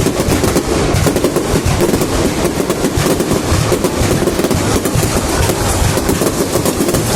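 Fireworks display going off: many bangs and crackles in quick, unbroken succession.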